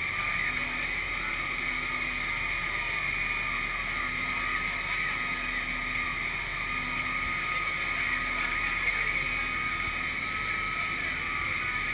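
Amphibious truck moving through river water: a steady engine drone with water rushing and splashing along the hull.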